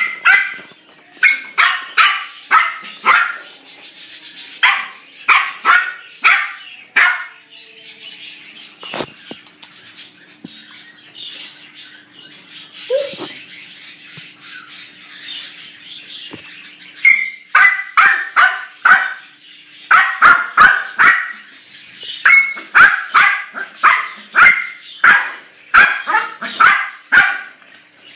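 A puppy barking in short, high-pitched yaps, about three a second. There is a run of barks in the first seven seconds, a quieter gap with only a faint steady hum, then a longer run of barks from a little past the middle to near the end.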